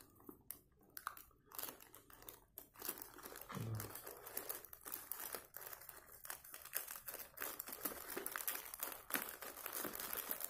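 Plastic courier mailer bag crinkling and crackling as hands handle it, then scissors snipping into the plastic in the second half.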